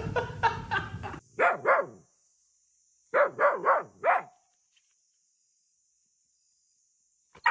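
A dog barking in short bursts. There are several barks in the first second, two more just after, and a quick run of four about three seconds in, then the barking stops.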